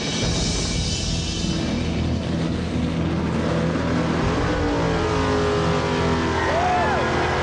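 Chevrolet Chevelle drag car doing a burnout: the engine revs, rising in pitch about halfway through, and the spinning rear tyres hiss, over background music.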